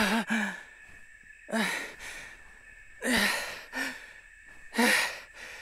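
A person's heavy, gasping breaths, about five of them a second or so apart, each with a little voice in it: the sound of someone winded and catching their breath after running.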